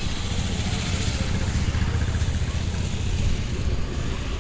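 Steady outdoor background noise: a low rumble with a hiss above it, the hiss brightest about a second in.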